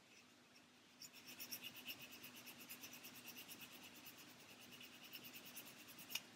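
Fine wet-and-dry sandpaper, rolled on itself, rubbed quickly back and forth on a small plastic model part: a faint, rapid, even scratching that starts about a second in. The fine grit is taking out scratches left by coarser sandpaper. A sharp click comes near the end.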